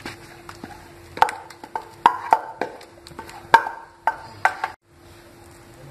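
Wooden spatula knocking and scraping against a frying pan as thick masala stuffing is scraped out into a bowl: a string of sharp knocks, each with a short ring, stopping suddenly about three-quarters of the way through.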